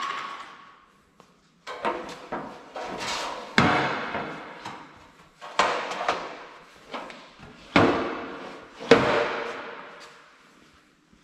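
Sharp metal clanks, each ringing out briefly, as a long coated sheet-metal downpipe is handled and knocked against the steel rails of a pipe-seaming machine. There are about eight knocks, irregularly spaced, and the loudest comes about two-thirds of the way through.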